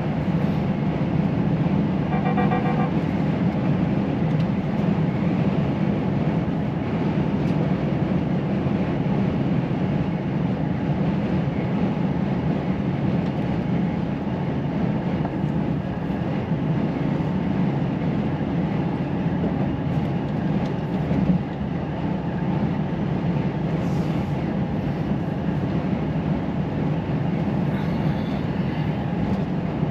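Cab sound of a Volvo FH truck with its 13-litre six-cylinder diesel cruising on the motorway: a steady low engine drone mixed with road noise. A brief pulsing tone sounds about two seconds in.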